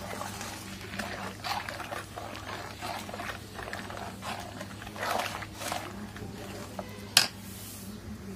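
A metal spoon stirring milk as it boils down in a metal pan: irregular swishing, scraping strokes, about one or two a second, over a low steady hum. A single sharp click near the end is the loudest sound.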